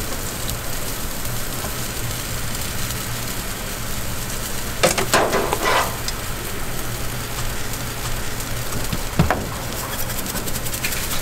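Food sizzling on a street-vendor's flat-top griddle, with a brief clatter about five seconds in and a sharp knock near nine seconds.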